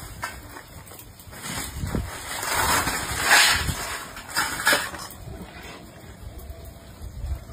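Crisp fried finger papad sticks rattling and rustling as a big wire strainer load of them is tipped out, swelling to a peak a few seconds in, with a few sharper clatters just after.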